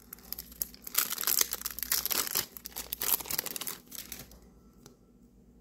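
Crinkling of a foil trading-card booster-pack wrapper being handled, in a run of crackling from about a second in until about four seconds in.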